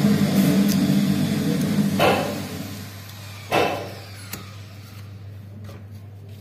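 A steady low hum that fades about three seconds in, with two short knocks about two and three and a half seconds in from handling a plastic keystone jack and network wall box.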